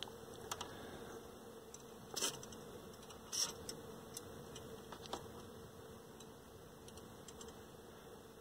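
Two short hisses of an aerosol can of DeoxIT contact cleaner spritzed through its straw into a TV tuner, about two and three and a half seconds in, over a faint steady hum with a few light clicks.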